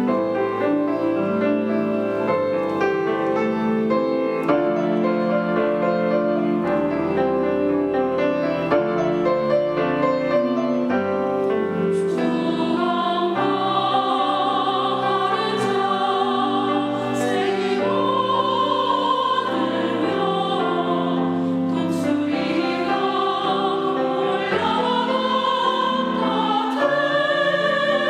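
Piano playing a slow hymn accompaniment, joined about twelve seconds in by classical-style singing with strong vibrato over the piano.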